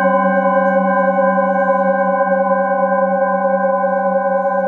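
A set of metal singing bowls ringing on after being struck with a mallet: a steady chord of several overlapping tones with a slow, gentle wavering, and no new strikes.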